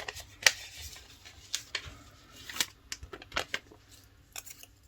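Paper being handled: a few light rustles and taps as a sticker is peeled and pressed onto a planner page.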